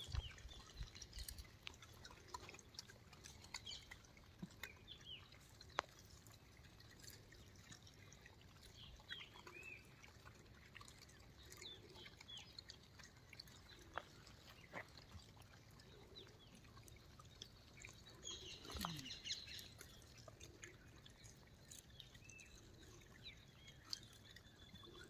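Near silence outdoors, with faint scattered bird chirps and small clicks, and one brief louder chirping burst about three-quarters of the way through.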